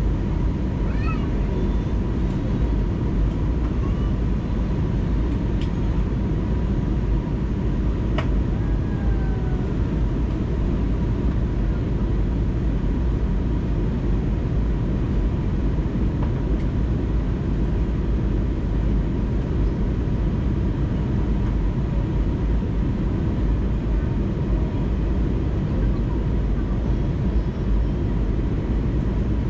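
Steady engine and airflow noise inside the cabin of an Airbus A320neo on its descent toward landing, a deep constant rumble with a faint steady high hum over it.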